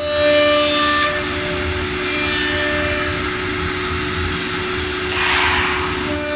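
CNC woodworking router's spindle running with a steady whine, louder near the start and again near the end as it works. A brief hiss about five seconds in.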